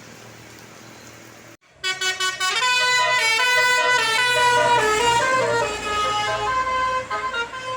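A tour bus's 'telolet' multi-tone air horn playing the Basuri tune: a loud run of horn notes stepping up and down in pitch, starting suddenly about two seconds in over the low rumble of traffic.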